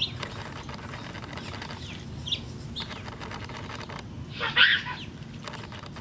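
Sphynx cat chirping at birds: a few short high chirps, then one louder, longer chirping cry about four and a half seconds in.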